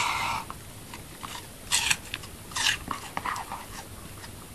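Wire fox terrier biting and chewing a piece of apple: two loud crisp crunches a little under a second apart around the middle, with smaller wet chewing clicks around them. A short snuffling breath at the start.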